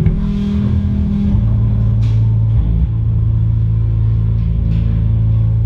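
Live rock band's amplified electric guitars and bass settling, from about a second and a half in, onto one low droning note that rings on steadily through the amps.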